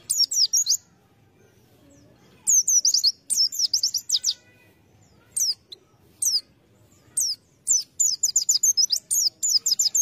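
White-eye (pleci) singing: several bursts of rapid, high, downward-slurred chirps, separated by short pauses, with the longest run near the end.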